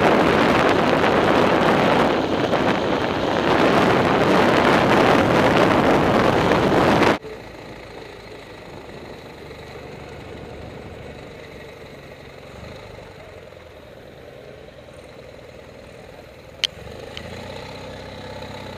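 Motorcycle ridden at road speed with loud wind rushing over the microphone, which cuts off abruptly about seven seconds in. The engine then runs quietly and steadily at low speed, with a sharp click near the end.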